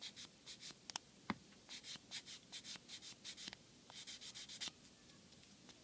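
Sanding stick rubbed in short back-and-forth strokes over a plastic model part, a faint scratchy rasp about three strokes a second, as dried glue on a filled seam is sanded flush.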